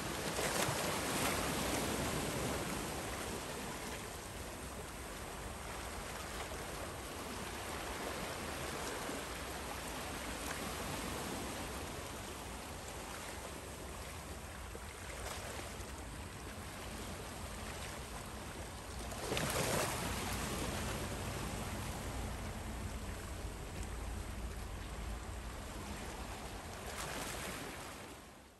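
Harbour ambience at night: a steady rush of water and wind, swelling briefly about a second in and again about two-thirds of the way through.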